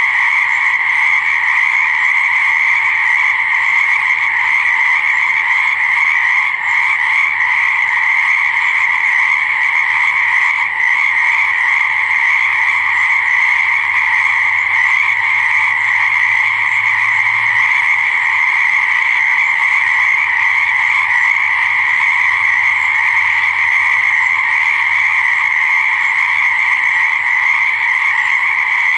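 Chorus of many frogs calling at once, a steady unbroken din with no single call standing out.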